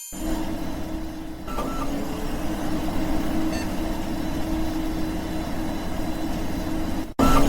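A steady mechanical rumble with a constant low hum, starting suddenly and cutting off abruptly near the end, followed by a brief loud burst.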